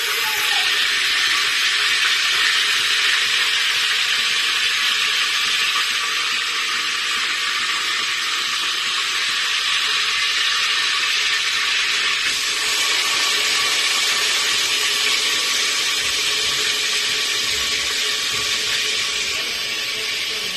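Food frying in hot oil: a steady, loud sizzle.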